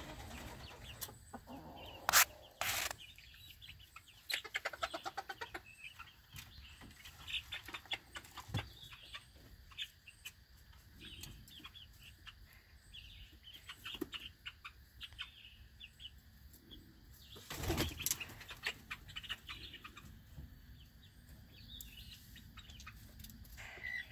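Chickens clucking in a pen, with short bursts of wing flapping, one about two seconds in and a louder one a little past the middle, and a quick run of clucks around four to five seconds in.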